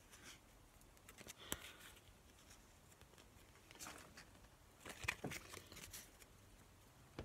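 Faint handling of a stack of glossy Prizm basketball cards: a few soft slides and clicks as cards are flipped through by hand, spaced a second or more apart.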